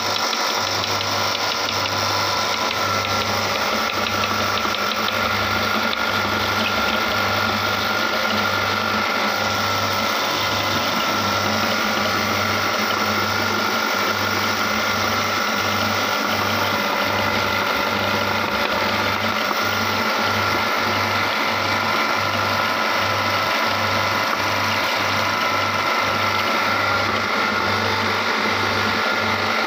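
Meat grinder running steadily while grinding green chillies, a continuous mechanical hum with a regular low pulse.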